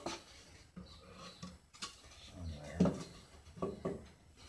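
Plywood panels being handled and shifted about, giving a few light, scattered wooden knocks and taps.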